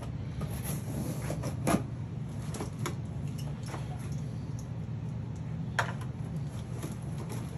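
Cardboard shipping box being opened by hand: scraping and rustling of cardboard and packing tape, with scattered small clicks and two sharper knocks, one about two seconds in and one near six seconds.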